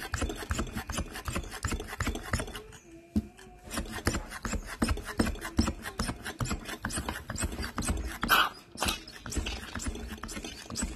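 Manual lever espresso maker being pumped to pull a shot: rapid clicking and rubbing from the lever mechanism under pressure, with a brief squeak about three seconds in.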